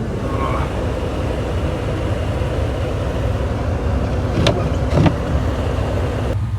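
Gas Ram 2500 pickup's engine running steadily while plowing snow, with two sharp knocks about a second and a half apart near the end.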